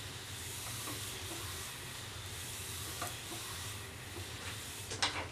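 Steady low hiss and hum of room tone with a few faint ticks; some light handling noise starts near the end.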